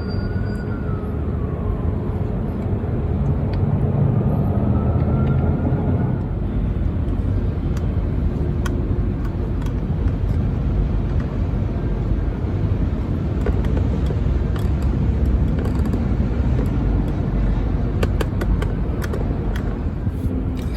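Steady low rumble of outdoor background noise, with scattered light clicks and taps from about eight seconds on as the plastic door handle trim is pressed and clipped into the door panel. A faint whistling tone falls away in the first couple of seconds and rises again a few seconds later.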